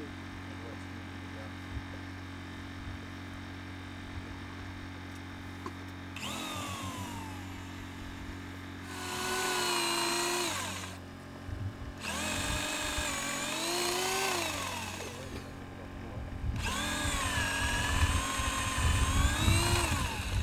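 Power drill running in four bursts, its pitch sagging and rising again as it bites and frees, over a steady low hum. The last burst is the longest and loudest.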